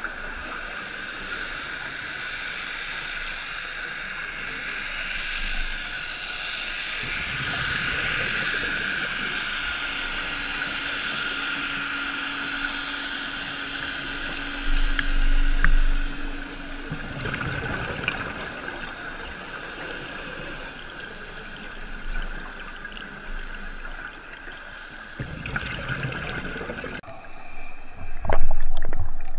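Underwater sound heard through a GoPro's waterproof housing during a scuba dive: a steady muffled hiss of scuba regulator breathing and exhaled bubbles, with louder surges about halfway through and again near the end.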